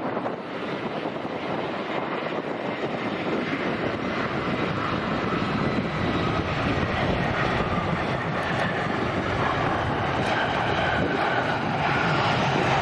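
A jet airliner's engines growing steadily louder as the aircraft approaches, a dense roar with a faint whine over it.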